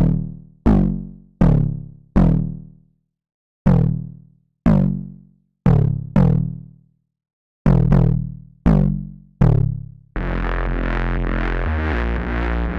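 Synth bass from Serum software-synthesizer presets: eleven separate plucked notes, each with a sharp attack and a fading tail, in an uneven rhythm. About ten seconds in, a different preset takes over with a dense, sustained buzzy bass that holds steady.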